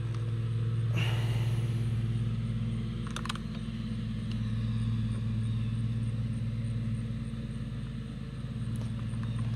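1993 Suzuki DR250's single-cylinder four-stroke engine idling steadily while the freshly adjusted clutch cable is tested at the lever, with a couple of short clicks about one and three seconds in.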